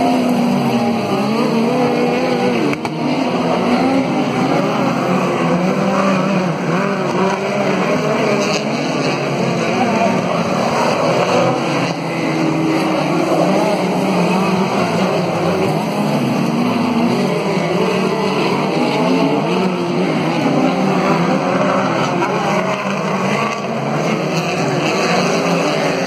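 Engines of several dirt-track race cars running hard around a speedway oval, loud and continuous, their pitch rising and falling as the cars accelerate and back off through the laps.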